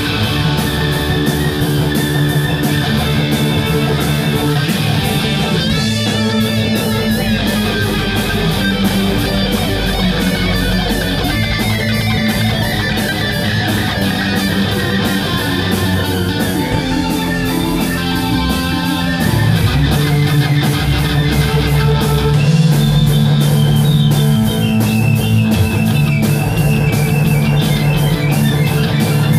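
A live rock band playing: electric guitars, drums and keyboard together, loud and steady, getting a little louder about two-thirds of the way through.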